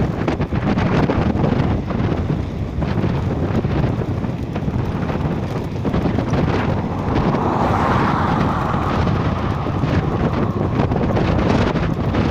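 Heavy wind buffeting the microphone of a moving bicycle, a dense continuous roar that swells partway through.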